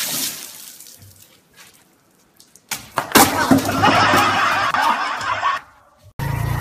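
A sudden clatter and thump about three seconds in as a man falls when his plastic chair is pulled out from under him, followed by a couple of seconds of loud laughing and shouting.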